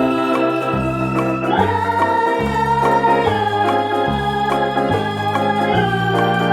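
Background music on an electronic organ: sustained chords over a bass line that steps to a new note every half second to a second.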